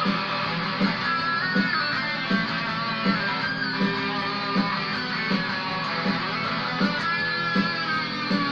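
Squier Stagemaster electric guitar playing a lead line in E with bent notes, over a steady low beat about every three quarters of a second.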